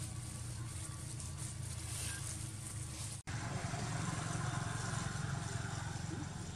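Steady low outdoor rumble with a faint hiss above it, cut off for an instant about three seconds in, then continuing slightly louder.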